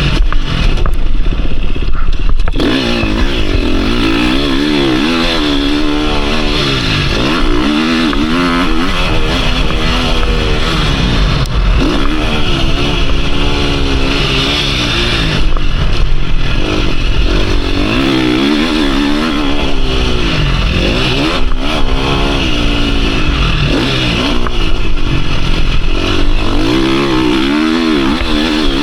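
KTM 350 SX-F single-cylinder four-stroke motocross engine under hard riding. It revs up and drops back over and over as the throttle is opened and chopped, with a few brief throttle-offs.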